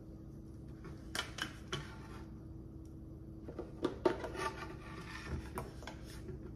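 Scattered clicks and light knocks as the power cord and plug are handled and fitted into the stainless-steel base of an Almond Cow milk maker, over a faint steady hum.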